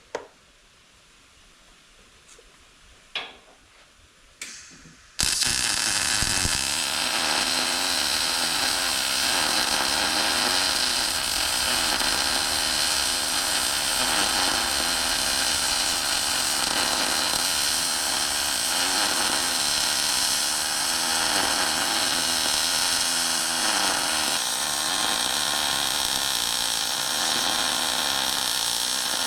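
MIG welder laying a continuous bead, starting suddenly about five seconds in after a short click, then a steady crackling hiss of the arc, stacking weld passes to fill ground-out cracks.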